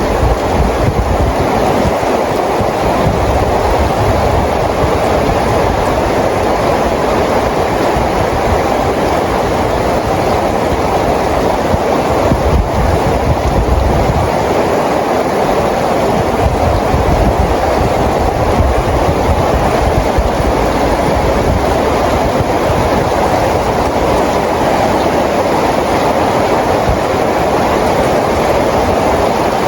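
Steady rain falling, an even dense hiss with a low rumble underneath that swells and fades.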